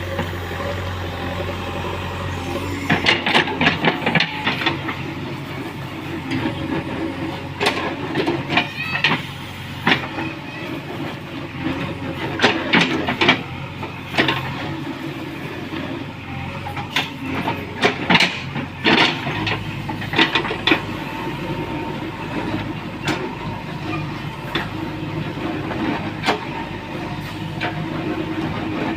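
JCB 3DX backhoe loader's diesel engine running steadily, with irregular clanks and knocks on top, clustered in several bunches.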